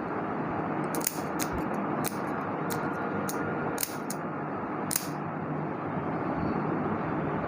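Steady background noise with about seven sharp, light clicks and taps scattered through the first five seconds.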